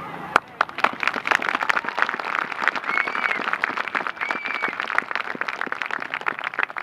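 Crowd applauding: dense, irregular clapping, with two short whistle-like calls rising over it near the middle.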